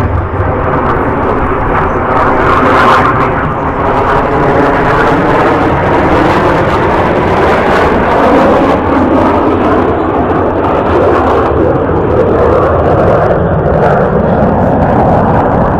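Aermacchi MB-339 jet trainers' Rolls-Royce Viper turbojets in a loud, continuous roar as the aircraft fly past, their sound sweeping and phasing as they pass.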